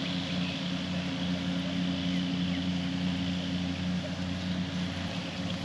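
A steady engine hum, even in pitch, over a constant hiss.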